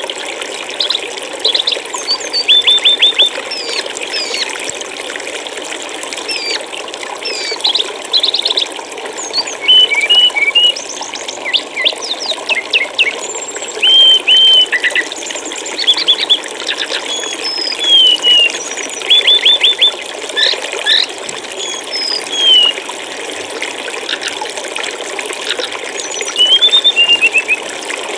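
Steady rush of flowing stream water, with a small songbird's short chirps and whistles cutting in again and again, some in quick runs of three to five notes.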